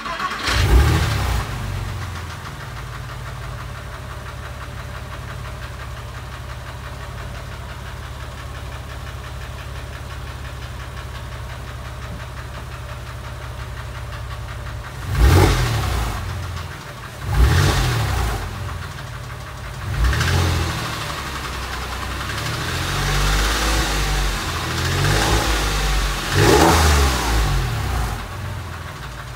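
Porsche 996 3.4 flat-six idling with a ticking noise that the owner suspects could be an exhaust manifold gasket, a tappet or piston slap. It rises briefly about a second in, holds a steady idle, then is revved in a series of short throttle blips from about halfway.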